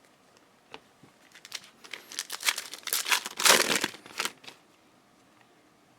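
Foil wrapper of a Panini Prizm football card pack crinkling and tearing as it is ripped open: a run of crackles starting about a second in, loudest past the middle, stopping about a second and a half before the end.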